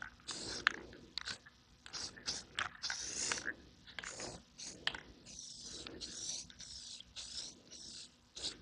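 Aerosol can of clear coat spraying in repeated hissing bursts, short ones mixed with longer passes, as a light coat of clear is laid down; a few light clicks fall between the bursts.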